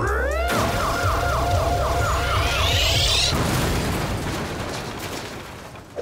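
Cartoon sound effects over music: a crash about half a second in, then a fast, repeating warbling whoop with a rising whistle above it, which stops after about three seconds and leaves a fading rush of noise.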